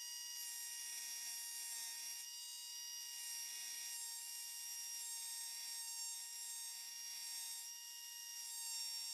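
Pneumatic rotary tool running with a steady high whine, its grinding stone grinding the tip of a steel screwdriver bit flat, with a grinding hiss that comes and goes as the stone is worked against the steel in short passes.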